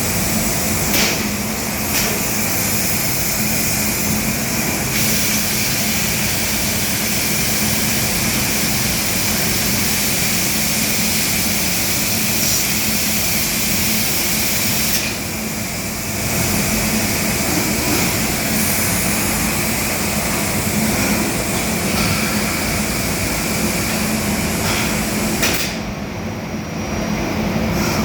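CNC machining centre running as it machines furniture parts: loud, steady machine noise with a low hum and a high whine. The noise eases briefly about 15 seconds in and again near the end, and there are a few short clicks.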